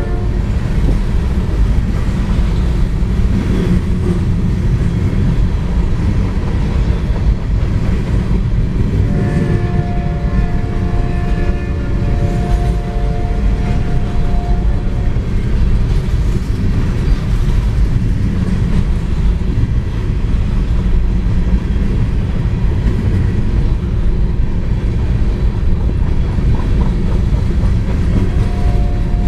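Freight cars of a grain train rolling past at speed: a loud, steady rumble of steel wheels on rail with clickety-clack. A steady pitched tone like a horn sounds for about five seconds partway through, and briefly again near the end.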